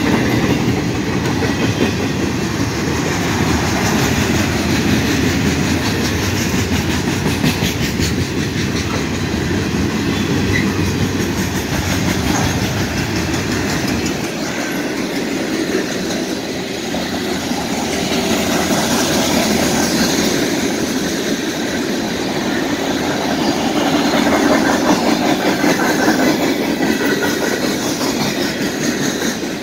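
Freight train cars of a mixed train (boxcars, gondolas, covered hoppers) rolling past close by: a steady rumble of steel wheels on rail with the clickety-clack of wheels over rail joints. The deep rumble thins out about halfway through.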